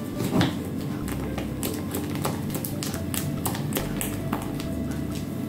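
Spatula clicking and scraping against a plastic bowl in quick, irregular taps while stirring colouring into whipped egg-white zefir mass, over background music.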